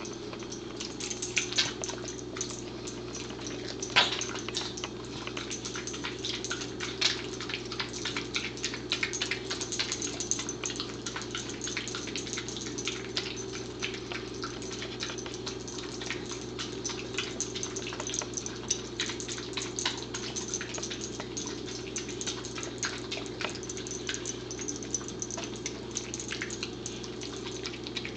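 A corgi lapping and chewing wet spinach soup and chicken meatloaf off a plate: a continuous run of wet licking and smacking clicks, with a sharper click about four seconds in.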